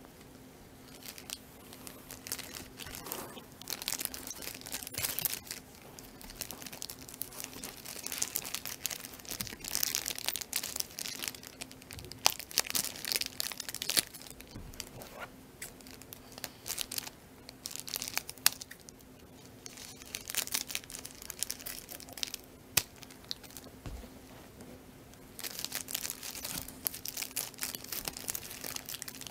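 Clear plastic bag crinkling and being torn open by hand, in irregular bursts of crackling with a few sharp clicks.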